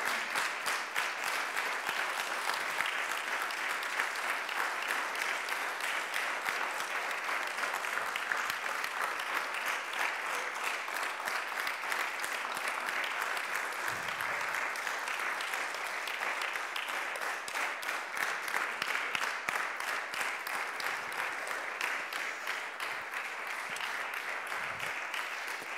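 Audience applauding, steadily, for the cast of a children's nativity play taking their curtain call.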